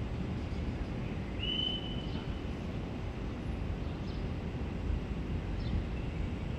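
Low, steady rumble of railway station background noise, with one high held tone starting about a second and a half in and lasting about a second, and a few faint short chirps later.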